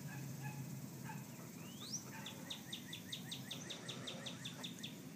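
A wild songbird singing: one quick rising whistle, then a fast, even trill of short down-slurred notes, about six a second, lasting a few seconds.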